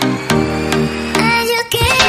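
Background music: held chords with a melody line over them. Near the end it drops briefly and a deeper bass beat comes in.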